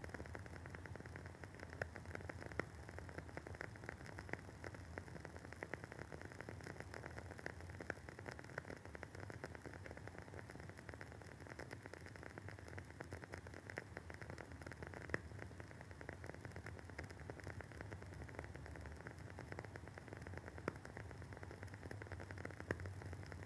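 The wooden wick of a burning WoodWick candle crackling in a steady run of fine, quiet crackles, with a few louder pops.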